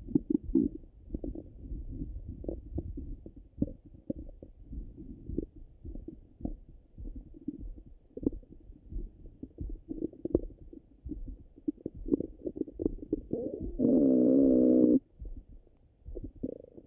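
Bowel sounds of a full stomach heard through a stethoscope, muffled and low: irregular soft clicks and gurgles. Near the end comes one louder, drawn-out gurgle with a wavering pitch, lasting about a second and a half.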